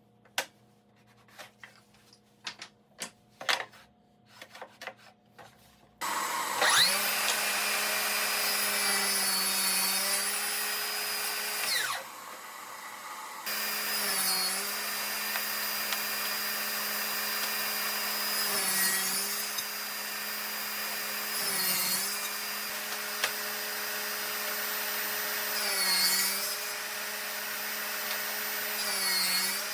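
A few light clicks and taps of handling, then an electric power tool's motor starts and runs steadily, stopping briefly and restarting, its pitch sagging for a moment several times as it bites into the wood under load.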